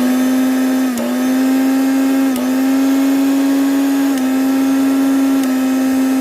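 Elevate 550 W mixer grinder's motor running at speed with a loud, steady whine, its pitch dipping briefly about a second in and twice more later.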